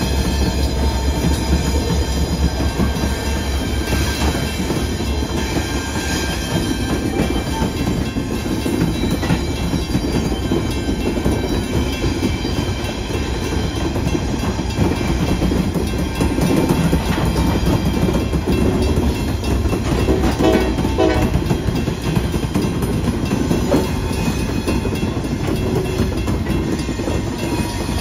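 Freight train rolling through a grade crossing. The low rumble of the trailing EMD SD60E diesel locomotive eases in the first couple of seconds. Covered hopper cars follow, with steady wheel rumble and clickety-clack over the rail joints and crossing, while the crossing signal bell rings steadily.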